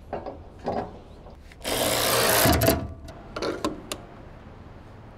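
Cordless power driver with a socket running in one burst of about a second, driving a bolt while a wheel balancer is assembled, followed by a few sharp metallic clicks.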